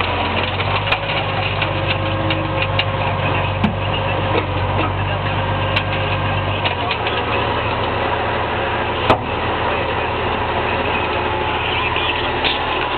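Case IH 956 XL tractor's six-cylinder diesel engine running steadily, heard from inside the cab. Its deep low note drops away about halfway through. A few sharp clicks and knocks can be heard over it.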